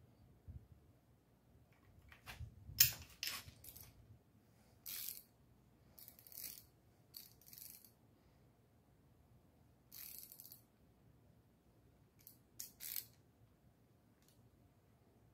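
Socket ratchet clicking in short bursts on the rocker-arm nuts of a V8, with light metallic clicks from the rockers and pushrods, as the nuts are snugged down to zero lash on hydraulic lifters. The loudest burst comes about three seconds in.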